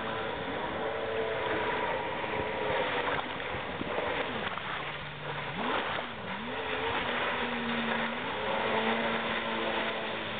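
Sea-Doo 1200 cc jet ski running at speed across open water, its engine pitch rising and falling as the rider works the throttle. About halfway through the pitch dips and then climbs sharply, followed by a higher, steadier note as it swings into a turn.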